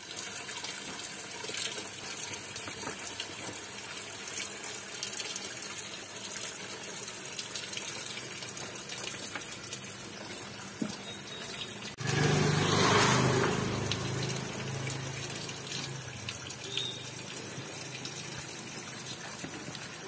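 Tiered fiber stone-dust fountain running, water trickling from each bowl's spout into the bowl below with a steady splashing. About twelve seconds in it grows suddenly louder for a couple of seconds, with a low hum underneath, then settles back.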